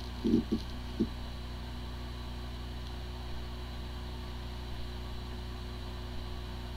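Hard drive with corrupted firmware spinning with a steady hum, a few short low buzzes in the first second. It sounds like a healthy drive, yet a computer cannot detect it: the sign of disk firmware corruption.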